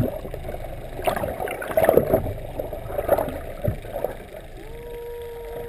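Water sloshing and gurgling as heard by a camera held just under the surface, with several louder surges in the first three seconds as a giant trevally is let go by the tail. About a second from the end, a steady, even tone comes in and holds.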